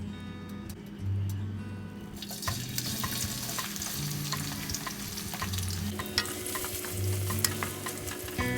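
Food sizzling as it fries in a pan, starting about two seconds in, with many short clicks of a utensil stirring it. Soft background music plays underneath.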